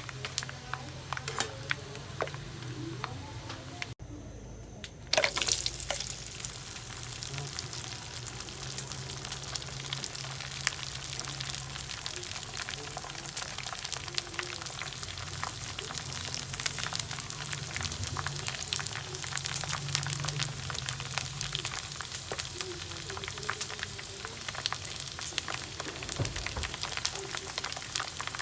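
Pork chicharon (pork rinds) deep-frying in hot oil: a steady sizzle full of dense crackling and popping. About four seconds in it drops away for a moment, then comes back louder and denser.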